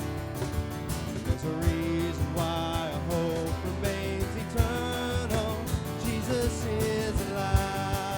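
Live church worship band playing a song, with guitars, bass and drums.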